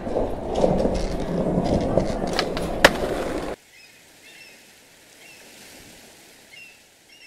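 Skateboard wheels rolling on a hard floor, with a couple of sharp clicks near the middle. The sound cuts off suddenly about three and a half seconds in, leaving faint background noise with a few soft high chirps.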